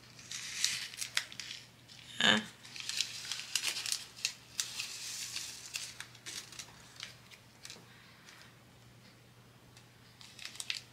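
Small plastic bag of diamond-painting drills being handled: irregular crinkling and rustling of the thin plastic with light clicks, and one louder sharp click about two seconds in.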